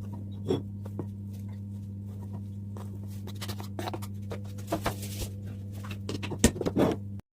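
Celery being cut with a knife on a cutting board: irregular crisp crunches and knocks in loose clusters, the loudest knock near the end, over a steady low hum.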